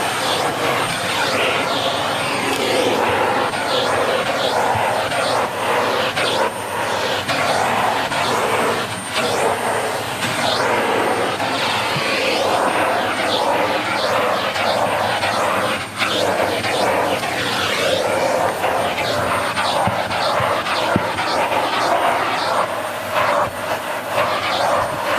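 Dyson Light Ball Multi Floor upright vacuum cleaner running with its hose and wand in use: a steady rush of motor and air with a thin high whine, the rush rising and falling a little as the tool is moved over the stairs.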